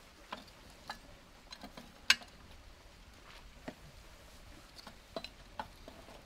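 Scattered light clicks and knocks of metal parts as a backflow prevention assembly is threaded onto a pipe by hand, with one sharper click about two seconds in.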